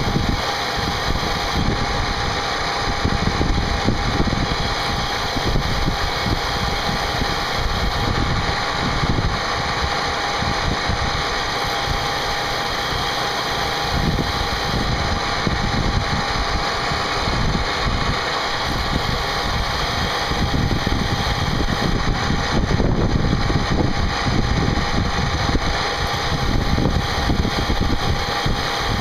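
CNC machine running a cut: a steady spindle whine over an uneven low rumble from the cutter working the part.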